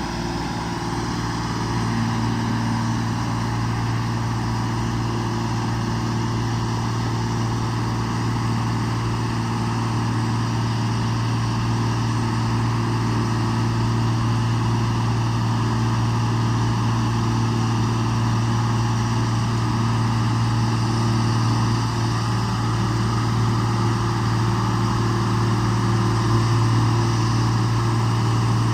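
A 125B excavator's engine running steadily as the machine is walked along a trail, a constant low hum that grows gradually louder.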